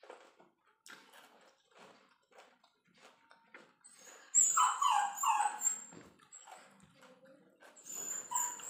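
A pet dog whining in a run of high, falling whimpers about four seconds in, then again briefly near the end, over soft chewing and mouth clicks.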